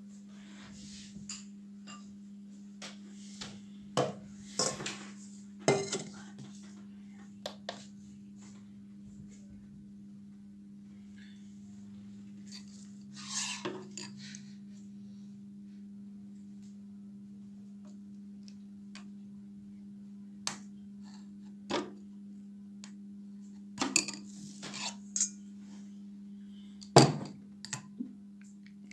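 Glass bowls and kitchenware clinking and knocking as they are handled, with short separate clinks scattered through, the loudest near the end. A steady low hum runs underneath.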